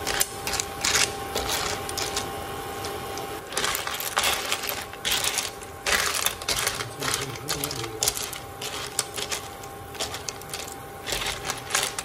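Cooked sea snail shells clicking and clattering against each other and the dish in irregular sharp clicks as the snails are picked up and eaten.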